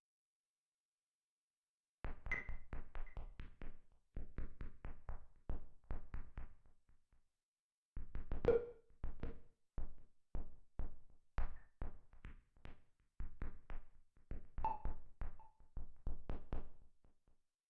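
Dave Smith Instruments Prophet 6 analog synthesizer module playing a dry, percussive preset: quick runs of short, clicky notes, about five a second, in phrases of two to three seconds with brief gaps between them. The notes start about two seconds in, and a few of them carry a short pitched blip.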